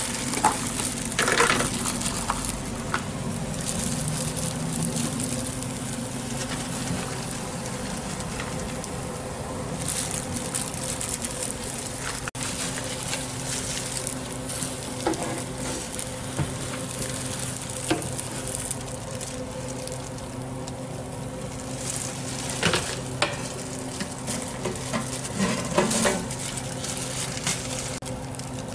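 Egg omelette sizzling on a flat griddle, a steady hiss under a low hum, with a few light knocks of plastic containers and a spatula now and then.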